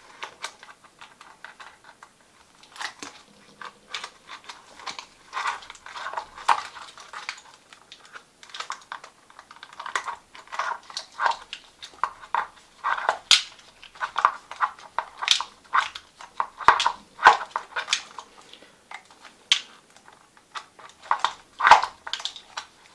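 A 2 mm hex driver backing out small screws from the plastic centre brace of a Redcat MT10E RC monster truck chassis. It makes an irregular patter of small clicks, scrapes and plastic rattles, with a few sharper clicks now and then.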